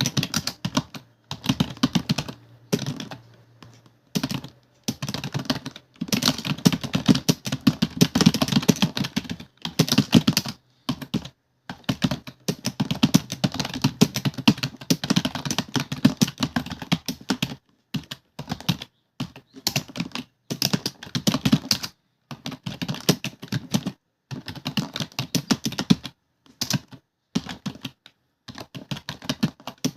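Fast typing on a computer keyboard: rapid runs of key clicks broken by brief pauses, during a timed typing test.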